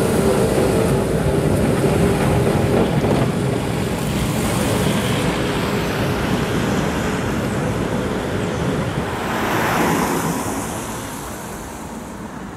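Tatra KT4D articulated tram pulling away on its rails, its motor hum and wheel noise fading as it draws off, over road traffic noise on a wet street. A louder rush of traffic swells about ten seconds in, and the level drops near the end.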